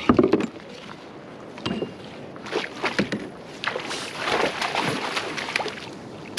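Water splashing and sloshing beside a kayak in irregular bursts, busiest in the middle, with a few sharp knocks and clicks, as a hooked fish is brought up alongside.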